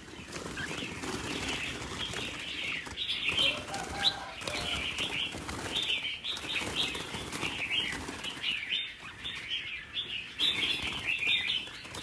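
A crowd of caged red-whiskered bulbuls chirping constantly, many short overlapping calls, with wings flapping as the birds flutter about the wire-mesh aviary while being caught.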